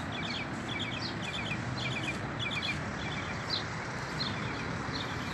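Small songbird chirping: quick runs of short, high notes for the first few seconds, then single chirps spaced out, over a steady outdoor background noise.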